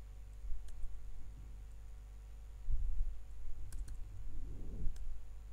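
A few scattered computer keyboard keystrokes, sharp single clicks, while code is being edited. A steady low electrical hum runs underneath.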